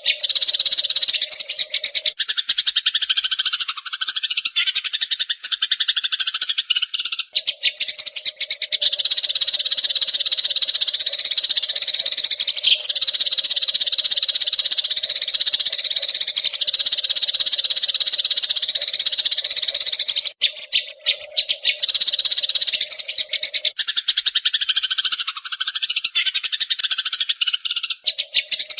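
Wild Eurasian tree sparrows chattering in a fast, nearly unbroken stream of high chirps. A lower, rapid twittering comes in twice for a few seconds, near the start and near the end.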